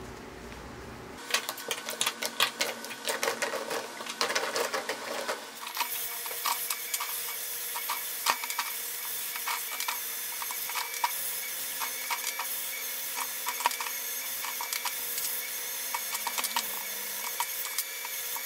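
Handheld battery-powered rotary scrub brush (Dremel Versa Scrub) running with a steady whir and thin whine, its spinning bristles scrubbing and clicking against small wet toy-truck wheels. The first few seconds are a busier, sharper clatter of scrubbing before the steady motor sound settles in.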